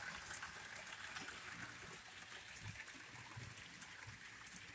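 Model trains running on the layout track: a faint steady whir and rattle of the wheels and motors, with a few light clicks.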